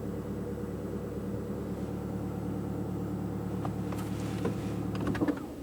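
Toyota RAV4 hybrid's engine idling steadily, then shutting off about five seconds in. A scatter of small clicks comes in the last couple of seconds, the loudest just as the engine stops.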